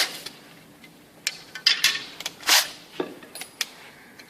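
A power drill cuts off right at the start. It is followed by a scattering of light clicks and knocks, about eight in three seconds, from the drill and the aluminium window guide being handled between drilling passes.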